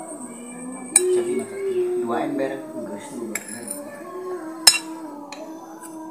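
A spoon clinking against a bowl of bakso soup twice, about a second in and again near the end, with softer eating noises between, over steady background music.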